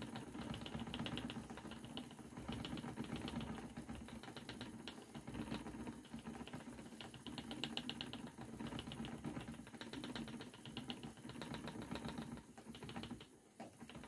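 Spinning wheel running while wool is drafted into yarn: a steady low hum with repeated runs of rapid ticking.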